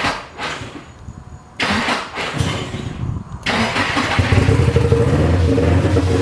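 Nissan SR20DET inline-four sputtering in two short bursts, then catching about three and a half seconds in and running steadily. It runs a little rough, which the owners think sounds like a misfire, perhaps from old gas.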